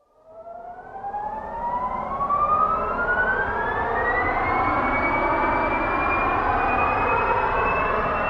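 Simulated jet engine spooling up: a whine climbs steeply from silence for about four and a half seconds, then more gradually, over a rushing roar that swells during the first couple of seconds and then holds steady.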